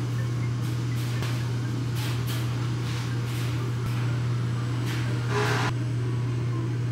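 Steady low machine hum, with a few faint rustles and knocks over it.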